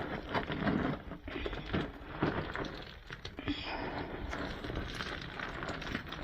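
Irregular scuffing, scraping and small knocks of a person clambering down a rocky incline, with rustling of clothing and gear.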